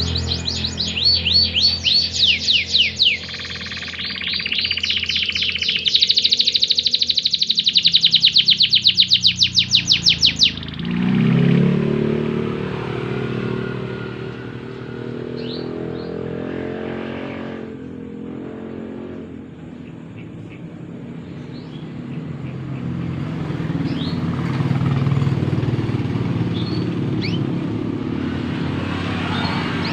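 Domestic canary singing loud, fast trills of rapidly repeated high notes. The song stops about ten seconds in. A low engine-like rumble follows, with only a few faint chirps above it.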